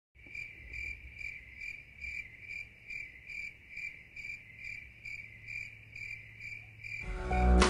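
Cricket chirping in a steady, even rhythm, about three chirps a second; music comes in near the end.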